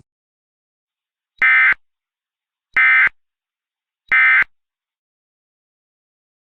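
Emergency Alert System end-of-message signal: three short, identical bursts of buzzy SAME data tones, about a second and a half apart, marking the close of the alert.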